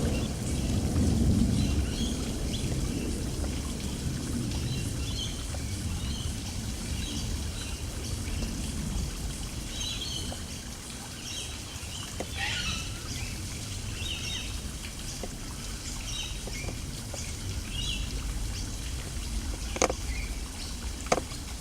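Small birds chirping in bushland, short scattered calls throughout, over a low rumbling noise that is strongest in the first half. Two sharp clicks near the end.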